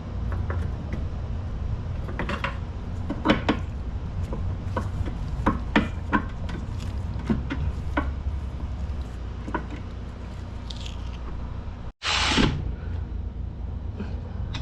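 Scattered clicks and metallic knocks of hand tools and parts being handled while motorcycle final-drive parts are bolted back together, over a steady low hum. About twelve seconds in, the sound drops out for an instant, then comes back with a short, loud rushing burst.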